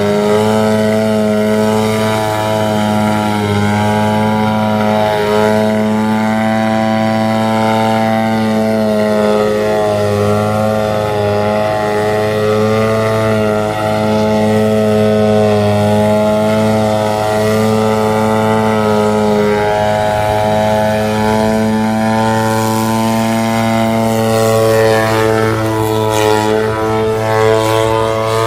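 DA50r single-cylinder two-stroke gas engine with a Pitts-style muffler, spinning a 22x8 propeller on an RC plane holding a hover. It runs steadily and loudly, its pitch wavering gently up and down with small throttle corrections, with a few quicker throttle changes near the end.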